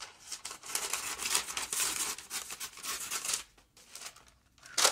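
Freezer paper crinkling and rustling while its tattered end is cut off the roll, for about three and a half seconds. After a short pause comes one sharp crackle of paper near the end.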